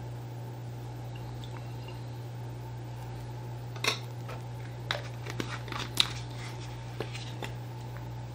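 A steady low hum, then from about four seconds in a string of light clicks and knocks as plastic kitchenware (a vinegar jug, a measuring spoon, a funnel) is handled and set down on a plastic tray.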